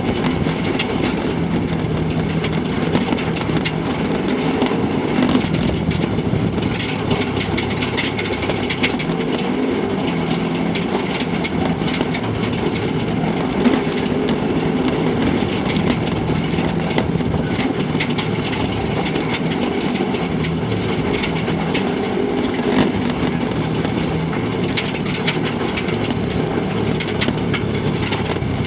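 Side-by-side UTV's engine running steadily while it drives over a rough, rocky track, with many small knocks and rattles from the bumpy ground throughout.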